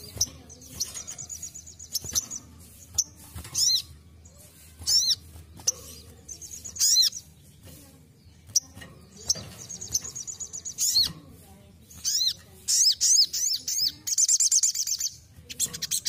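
Sunbird (sogon) singing: a run of sharp, high chirps mixed with quick high trills, ending in a loud trilled phrase near the end.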